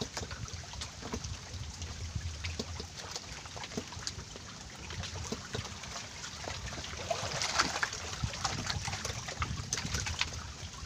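Choppy lake water lapping and splashing against a bamboo raft, with scattered small knocks and splashes that get busier about seven seconds in. A low rumble of wind buffets the microphone throughout.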